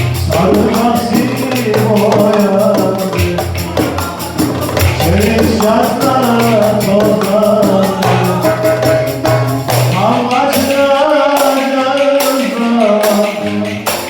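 Music: a fast, steady percussion beat with jingling strokes under a wavering, ornamented melody line.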